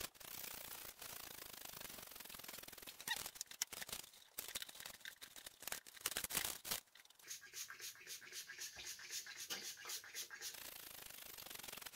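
Raw cauliflower florets being tossed and turned by hand on a parchment-lined baking sheet: crinkling paper and many light clicks and knocks of florets, with a quicker run of sharp clicks near the end.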